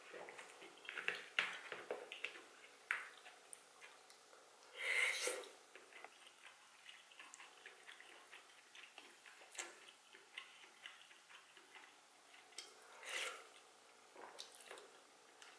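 Chewing food with the mouth closed: many soft, wet mouth clicks, with a short breathy sound about five seconds in and another about thirteen seconds in.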